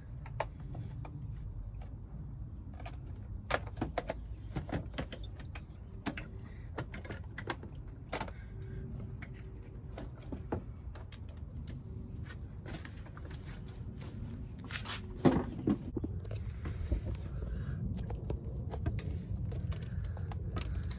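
Scattered clicks, knocks and rattles of hand tools and parts being handled while working on a small ATV, over a steady low rumble, with a louder cluster of knocks about fifteen seconds in.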